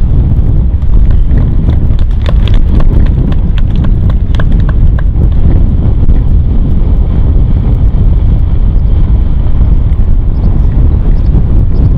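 Wind buffeting the microphone: a loud, steady low rumble, with a quick run of light clicks about two to five seconds in.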